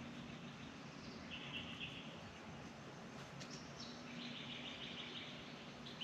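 Faint background bird calls: two short rapid trills, the second longer, over a steady outdoor hum.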